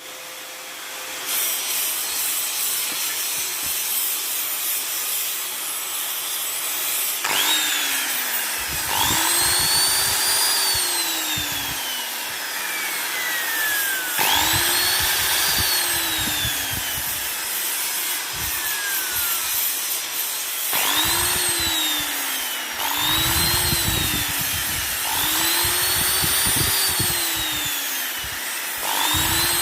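Electric grinder switched on and off repeatedly, about seven times after the first seven seconds: each time the motor whine rises quickly as it spins up, then sinks slowly as it coasts down. Underneath it runs a rough, uneven snoring noise, the fault the grinder is being checked for.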